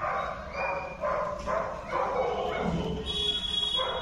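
A dog barking and yipping repeatedly, in short pitched calls about every half second.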